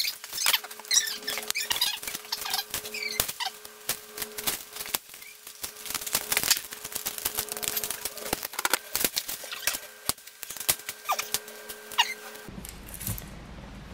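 Thin steel coil spring from a tape measure clattering and scraping on a concrete floor as it is pulled out straight, a quick irregular run of light metallic clicks and taps.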